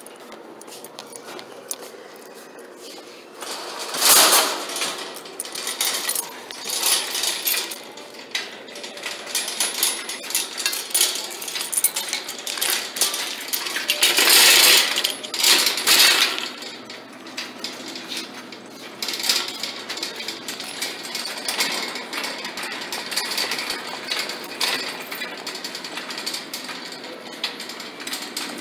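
Metal wire shopping cart rattling and clattering as it is handled and pushed along, with loud metal clanks about four seconds in and again around the middle.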